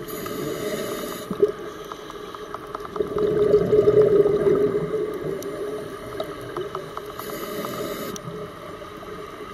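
Scuba diver's breathing through a regulator, heard underwater: a hiss of inhaling at the start and again near the end, and a louder gurgling burst of exhaled bubbles in between.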